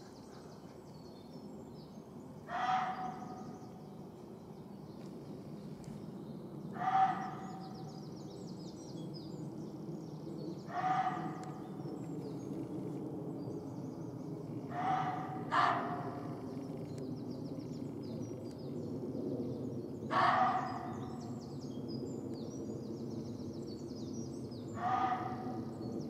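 Muntjac deer barking: short, sharp single barks about every four seconds, seven in all, two of them close together near the middle. Small birds twitter faintly behind.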